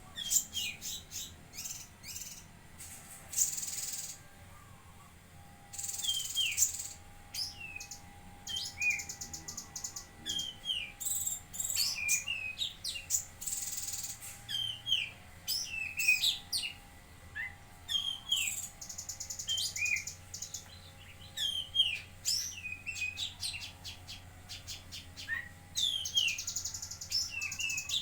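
Cucak kinoi songbird singing persistently: a rapid, unbroken string of short sliding chirps and whistled notes, broken by several buzzy, rattling trills.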